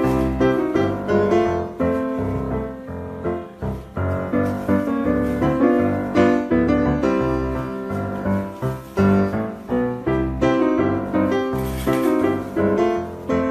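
Background piano music: a lively run of struck notes, each fading quickly, with a steady pulse.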